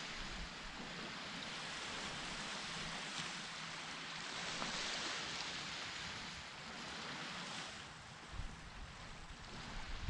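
Ocean surf washing onto a beach: a steady hiss that swells and eases every few seconds. Wind gusts rumble on the microphone near the end.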